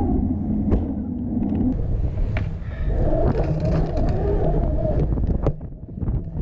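BMX bike rolling over skatepark concrete, heard through a camera mounted on the bike itself: a steady low rumble of tyres and frame, broken by occasional sharp clicks and knocks from the bike.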